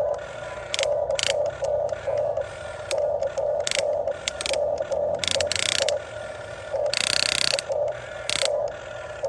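Huina 1550 RC excavator's electric gear motors whirring and grinding in short stop-start bursts, with a longer run about seven seconds in. Beneath them a low tone pulses steadily, about twice a second.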